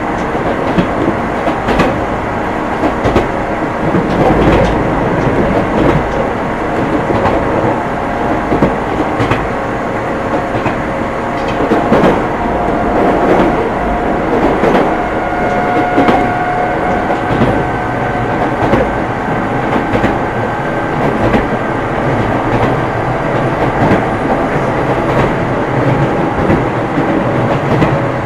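Odakyu 9000 series electric train running between stations, heard from inside the car: a steady rumble of wheels on rail with repeated rail-joint clicks, and faint steady tones over it.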